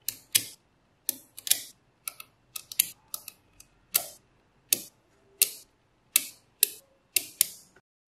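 Small neodymium magnet balls clicking sharply as they are snapped one by one onto a magnet-ball model. About fifteen irregular clicks come roughly two a second, each with a brief metallic ring.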